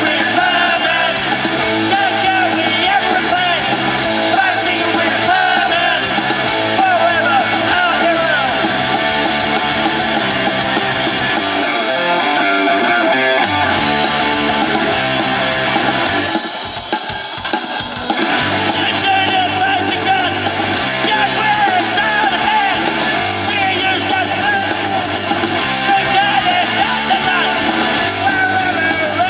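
Live rock band playing through a PA: sung and shouted lead vocals over electric guitars, bass and drum kit, with a brief break in the music a little past the middle.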